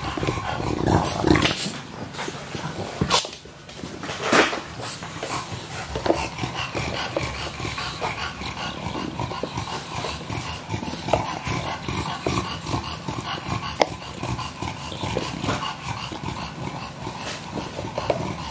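English bulldog chewing a rubber football chew toy: a run of irregular clicks and crunches from its teeth working the rubber, with the dog's own grunting noises mixed in and a few louder bursts early on.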